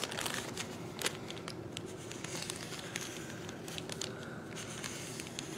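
Brown paper lunch bag rustling and crinkling against newspaper as it is handled and drawn on with a felt-tip marker, with scattered light clicks and scratches.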